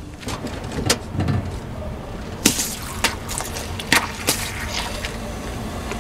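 Whole lemons squashed under a car tyre: wet squelching and juice squirting, with a series of sharp cracks and pops over a low steady rumble.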